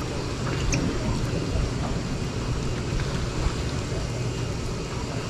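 Boat motor running steadily at idle, a constant low rumble under a wash of water and wind noise.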